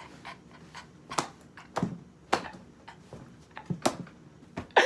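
Several sharp, irregularly spaced slaps and knocks from a person thrashing about excitedly, with a couple of short low grunts among them.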